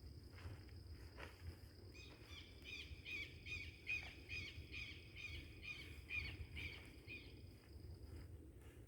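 A bird calling a rhythmic series of repeated high notes, about three a second, that starts about two seconds in and stops near the end. A thin steady high tone runs underneath and stops shortly before the end.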